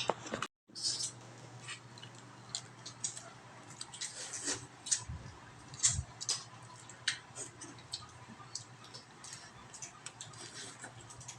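Irregular sharp clicks and small cracks of someone eating mud crab, breaking and picking at the shell, over a faint steady hum. The sound cuts out completely for a moment about half a second in.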